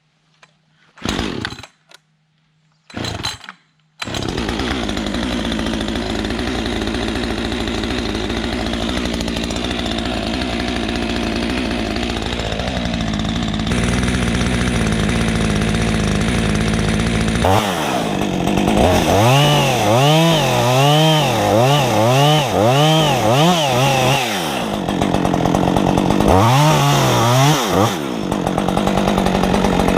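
Brand-new two-stroke chainsaw being started: two short bursts as it fires, then about four seconds in it catches and runs steadily. Past the halfway point it is revved up and down in quick pulses, about one a second, kept gently below full throttle as part of its break-in.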